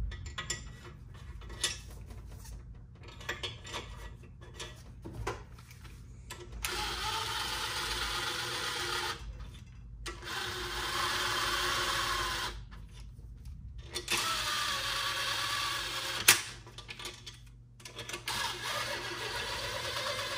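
A cordless power ratchet running the case bolts of a Subaru EJ257 engine block down snug, in four runs of two to three seconds each. Light clicks and taps of bolts and washers being handled come in the first few seconds.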